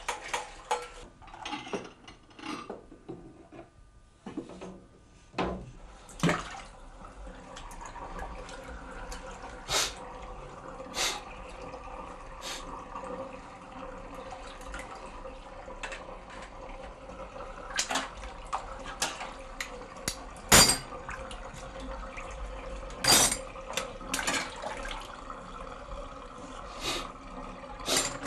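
Dishes being washed by hand in a sink full of water: water sloshing and splashing, with sharp clinks and knocks of crockery against the sink now and then.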